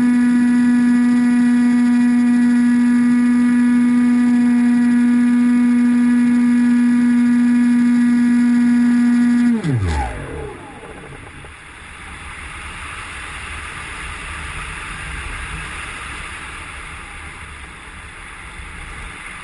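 The AXN Floater-Jet RC plane's electric motor and propeller running at a steady high pitch, then cut about nine and a half seconds in, the pitch falling fast as the propeller spins down. After that there is only wind rushing over the plane as it glides with the motor off.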